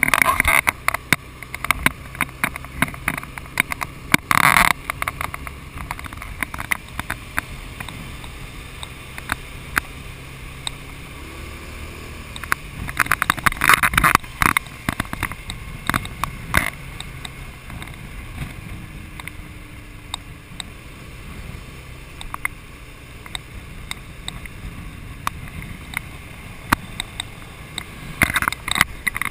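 Wind buffeting and crackling on a motorcycle-mounted camera's microphone during a ride, with louder gusts several times, over the low, steady hum of the motorcycle's engine.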